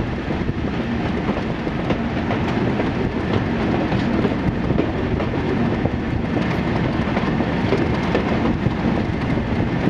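Diesel-hauled passenger train running on the rails: a steady, loud rumble with wheel clicks over the track.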